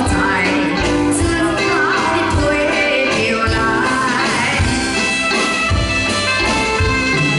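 A woman singing a Chinese song into a microphone over a live band, with a steady drum beat, heard through a stage PA.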